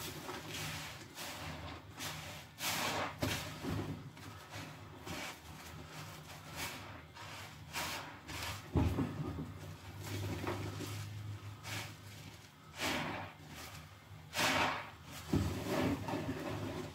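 Sponges being squeezed and worked in a tub of foamy soapy water: wet squelching and splashing in irregular bursts, with a few louder splashes.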